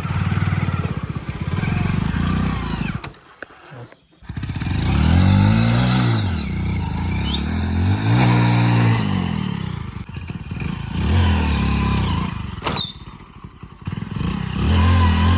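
Hero Splendor Plus motorcycle's small single-cylinder four-stroke engine revving up and down again and again, the note rising and falling in several surges, with a brief lull about three to four seconds in.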